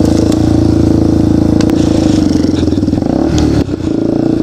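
Yamaha TT-R230 dirt bike's single-cylinder four-stroke engine running steadily under throttle while ridden along a trail, with a brief dip in the engine note about three and a half seconds in.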